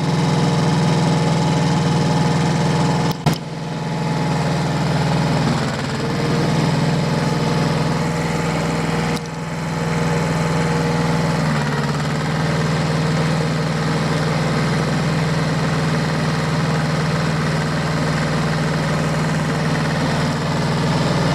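Diesel tractor engine running steadily, with one short knock about three seconds in and a slight change in its pitch about halfway through.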